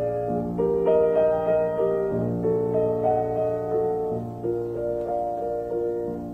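Background music: a slow piano melody of held notes over a sustained low bass note.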